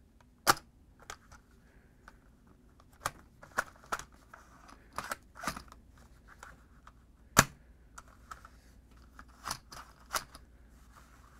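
Hard plastic parts of a Hot Wheels Trick Tracks launcher stunt clicking and knocking as they are handled and reset, a dozen or so scattered clicks with one sharp snap about two-thirds of the way through.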